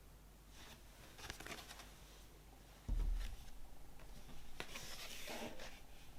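Vinyl record packaging being handled by hand: short rustling and sliding scrapes, with a dull thump about three seconds in, the loudest sound.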